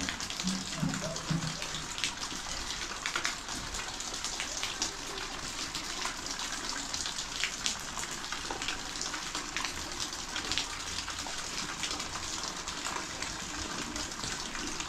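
Steady rain falling, heard as an even hiss with many separate drop ticks.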